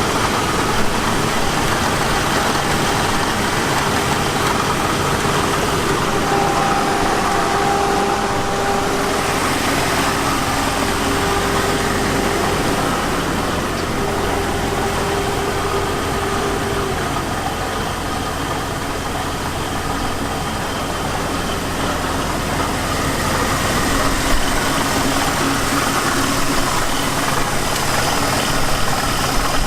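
Jeep Cherokee XJ's 4.0 litre inline-six idling steadily with a knocking noise. The owner traces the knock not to the engine but to the failing bearing of the fan clutch pulley.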